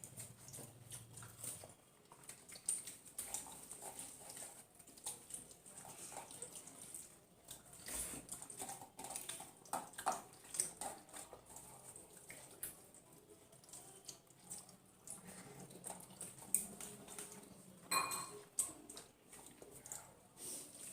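Faint meal sounds: scattered light clinks and taps of plates and hands as rice is eaten, with a few slightly louder clicks.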